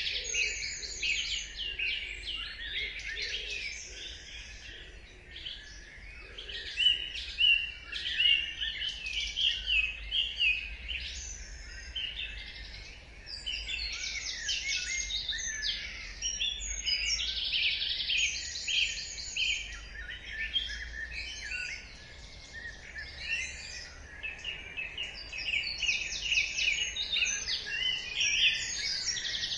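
Dawn chorus: many birds singing and chirping at once, their songs and calls overlapping without a break.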